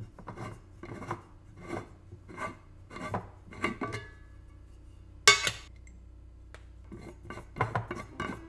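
Brushed-steel lid of a glass treat jar being twisted on the jar's rim in a run of short scraping strokes, about one and a half a second. There is one loud, sharp clatter a little past the middle, then more twisting strokes near the end as the lid goes back on.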